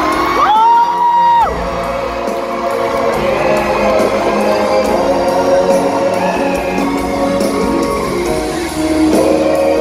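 Live pop ballad heard from among an arena audience: a male singer over a band, with the crowd whooping and singing along in the hall's echo. A loud held high note stands out from about half a second to a second and a half in.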